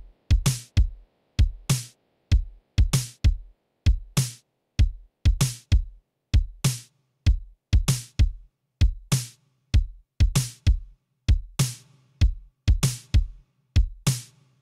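Programmed drum-machine loop of dry kick and snare samples, the snare landing about every second and a quarter. The snare is sidechained to a reverb channel whose level is being raised slowly, so from about two-thirds of the way in its hits grow a longer, roomier reverb tail.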